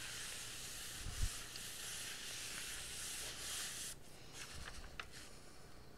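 Steady hiss of a Steamfast SF-717 mini steam iron being pressed and slid over paper on wax paper to melt crayon. The hiss stops about four seconds in when the iron is set down, followed by a few faint taps and paper rustles.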